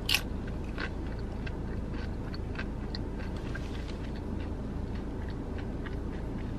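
A crunchy bite into a loaded tortilla chip right at the start, then chewing with small crackles of the chip breaking up, over a steady low background rumble.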